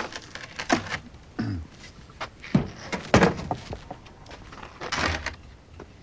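Several wooden knocks and thuds from an old wooden domestic ice box being handled, its doors and lid opened and shut; the loudest thud comes about three seconds in.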